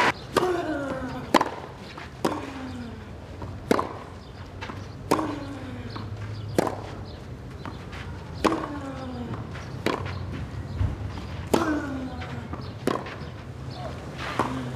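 Tennis rally on a clay court: the ball is struck back and forth by rackets, with sharp hits about every second and a half and a few bounces between them. Right after many of the hits comes a short sound that falls in pitch.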